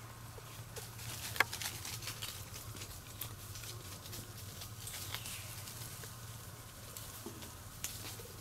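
Faint rustling and crackling of leaves and twigs, with scattered sharp snaps, the loudest about a second and a half in, over a steady low hum.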